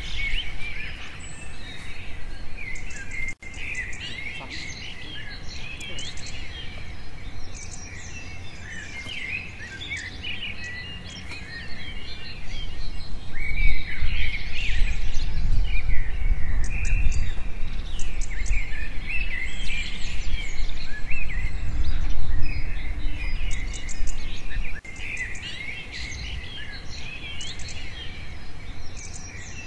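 Many wild birds chirping and calling in quick short notes and trills, over a faint background of insects. A low rumble joins in from about twelve seconds in and stops suddenly near twenty-five seconds.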